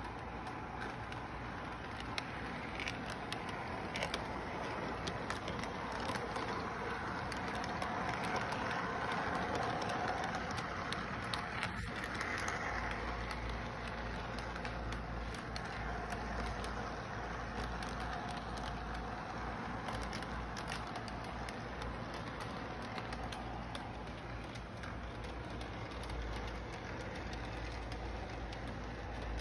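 Model train running on its layout track: steady motor and wheel noise from the Santa Fe F-unit diesel locomotive and its freight cars, with faint clicks as the wheels cross the track joints. A low hum comes in about twelve seconds in.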